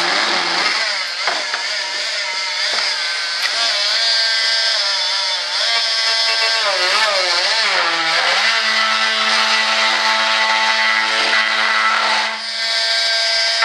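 Small handheld power saw cutting through a fiberglass part. It runs with a steady whine that wavers and drops in pitch, most around four to eight seconds in, as the blade bites and the load changes.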